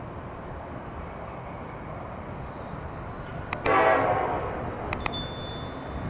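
Air horn of an approaching Norfolk Southern freight train sounding one blast about halfway through, starting suddenly and fading over about a second, over steady low background noise. A few sharp clicks with a thin high ring follow about a second later.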